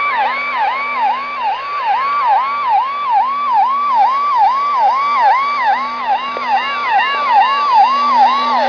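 Siren-like alarm signal received on the 13735 kHz shortwave frequency, coming out of a radio receiver. It is a warbling tone near 1 kHz that sweeps up and down about two and a half times a second, over and over.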